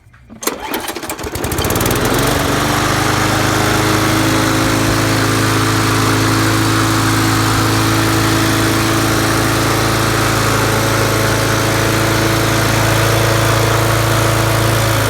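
Small Briggs & Stratton push-mower engine, the kind with its diaphragm carburetor on top of the gas tank, starting up about half a second in, climbing to speed over a second or two, then running steadily. It runs smoothly on a newly replaced carburetor diaphragm.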